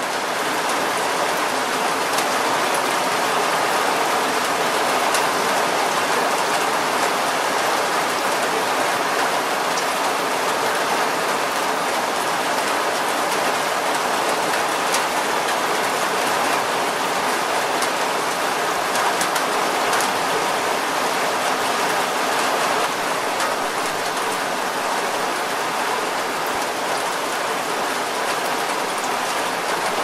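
Steady, heavy-sounding rainfall: a dense even hiss with individual drops ticking here and there.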